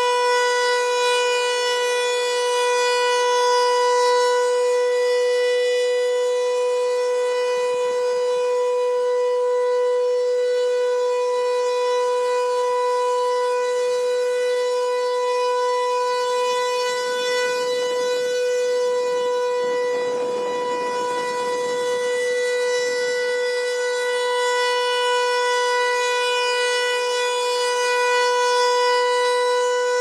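Federal Signal 508 rotating outdoor warning siren sounding a steady, single-pitched tone during its monthly test. Its loudness swells and fades slightly as the horn turns.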